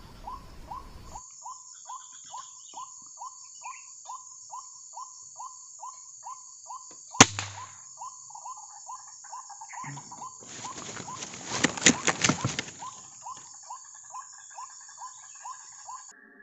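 White-breasted waterhen calls repeating steadily, about three short notes a second, over an insect's high steady buzz. An air rifle shot cracks sharply about seven seconds in, followed a few seconds later by a burst of rustling and flapping.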